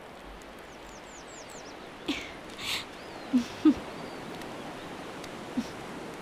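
Outdoor garden ambience: a steady background hiss with a quick run of high, falling bird chirps in the first second and a half, then a handful of short, sharp animal calls spread through the rest.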